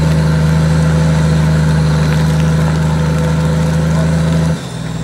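Toyota Land Cruiser engine running at a steady speed as the vehicle crawls through deep mud ruts. The note changes abruptly and gets a little quieter about four and a half seconds in.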